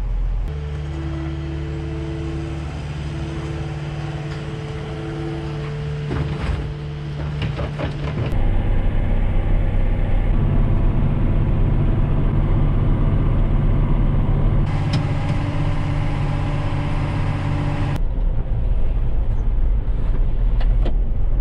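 Tractor's diesel engine running steadily, heard from inside the cab, louder from about eight seconds in. During the first few seconds a two-note tone repeats over the engine.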